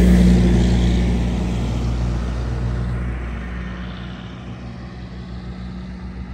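Car on the move: a steady low engine and road hum that fades down over the first few seconds.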